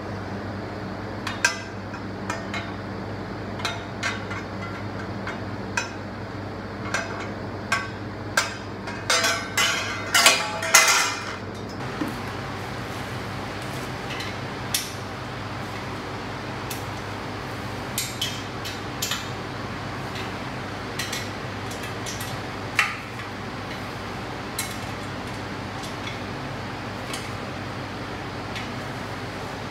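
Hollow metal tubes of a laundry organizer frame knocking and clinking as they are handled and fitted together: scattered single knocks, with a quick run of ringing clinks about ten seconds in.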